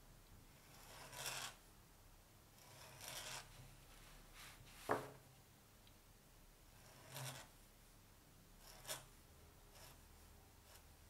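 Hunt 101 steel pointed nib scratching across card as flourished strokes are drawn: faint, separate scratches of a second or less, about six in all, with one sharper, louder scratch about halfway through.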